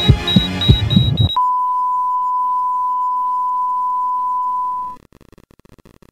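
Heart-monitor sound effect: a racing heartbeat thumps under music with quick high monitor beeps, about three a second. About a second in, everything cuts to one steady flatline tone, which stops abruptly about five seconds in. The flatline is the sign of the heart stopping, standing for a dying planet.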